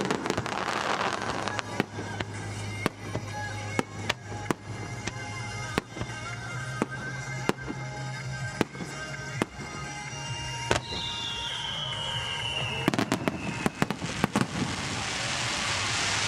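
Fireworks display: aerial shells bursting in a string of sharp reports over music playing through loudspeakers. A whistling shell gives one falling whistle about eleven seconds in. Near the end a dense crackling hiss builds up.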